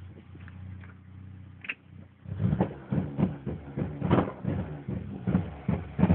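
Engine running steadily at first, then from about two seconds in running rough, with irregular loud thumps roughly twice a second: the engine is misfiring.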